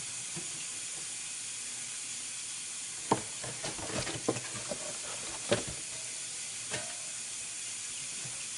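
Light knocks and clatters of kitchenware being handled, a cluster of them starting about three seconds in, over a steady background hiss.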